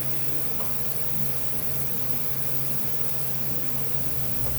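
A steady low hum with an even hiss, the sound of a machine running continuously in the background.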